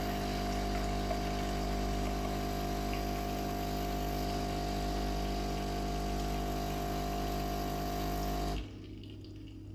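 Philips 2300 coffee machine's pump humming steadily as it pours an espresso, then cutting off suddenly about eight and a half seconds in as the shot finishes.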